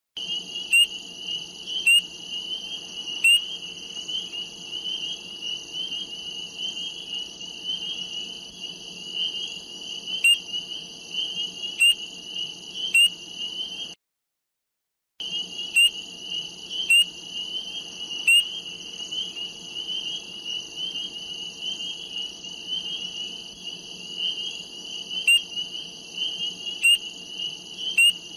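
Frogs calling: a continuous high-pitched trill under loud, sharp single calls that come in groups of three, about a second apart. The sound cuts out for about a second midway and then starts again.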